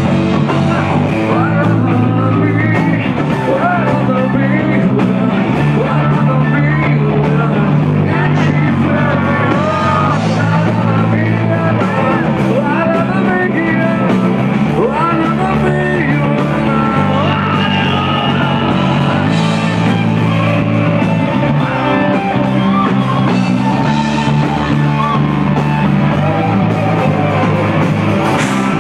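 Rock band playing live and loud: electric guitar over bass and drums, with a singer.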